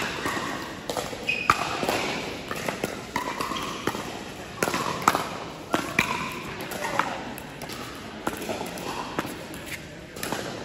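Pickleball paddles hitting a hard plastic ball during a rally: a series of sharp pops at irregular intervals, echoing in a large indoor hall, over a murmur of voices.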